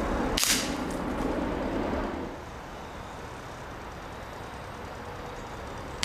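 A Gamo pellet rifle fired once about half a second in, a single sharp crack as the pellet strikes the old iPod set against the target; a second shot cracks right at the end.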